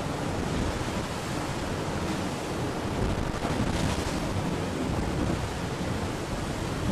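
Steady rush of water and wind around a racing yacht sailing fast at about 20 knots, swelling louder about three seconds in.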